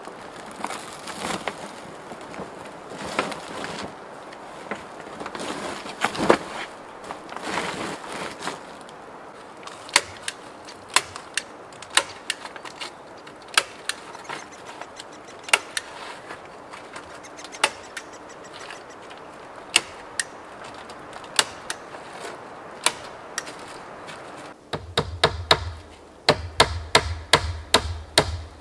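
Hand tools working timber. First come several drawn-out noisy strokes about a second apart, then a long run of sharp wooden knocks roughly one a second. Near the end a quicker run of knocks comes at about three a second.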